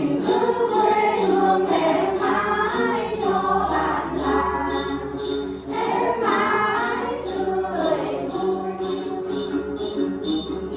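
Music: a song with voices over a steady jingling beat of about three strokes a second.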